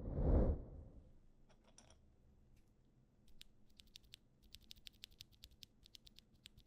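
A low boom right at the start, then typing on a Neo65 Cu mechanical keyboard with Toro Studio Torrero light tactile switches: a few scattered keystrokes, then from about three seconds in a quick run of clacky keypresses, several a second.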